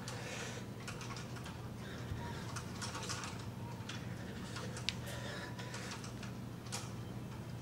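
Room tone: a steady low hum with scattered faint clicks and brief rustles.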